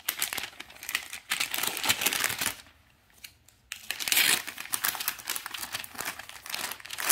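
Brown kraft wrapping paper crinkling as it is unfolded from around a boxed book, in two stretches with a short pause about three seconds in.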